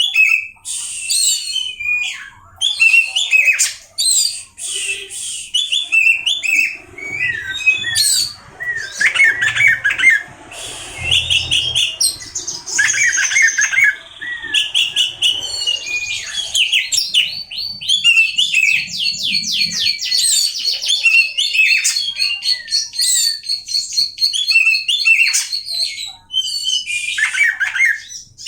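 Oriental magpie-robin (kacer) singing loudly, a varied string of whistles, chirps and squawky phrases, running into a long fast trill of rapidly repeated notes in the second half.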